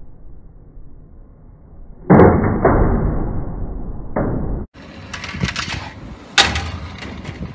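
A toy Thomas train crashing and tipping over: a sudden loud, muffled crash about two seconds in that cuts off sharply after two and a half seconds, then a run of sharp knocks and clatter.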